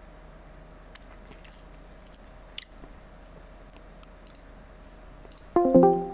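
Faint steady electrical hum with scattered soft computer-mouse clicks, one sharper click about two and a half seconds in. Near the end a brief loud pitched sound breaks in.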